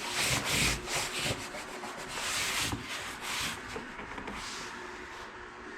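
Rubbing and scuffing strokes of a hand working against a surface: a handful of irregular strokes in the first few seconds, then fainter ones.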